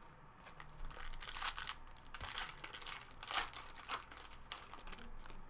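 A trading-card pack wrapper crinkling and tearing as it is opened by hand, in irregular crackles for about four seconds.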